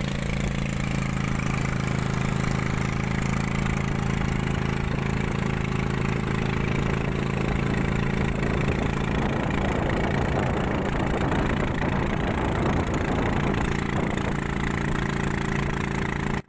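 A small motor banca's engine running steadily at an even pitch as the boat travels across the water.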